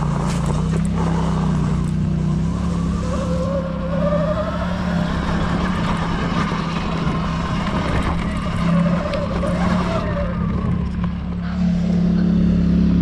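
Polaris Sportsman 850 ATV engine running at a steady pace while riding a trail, with a fainter whine over it that rises and falls in pitch.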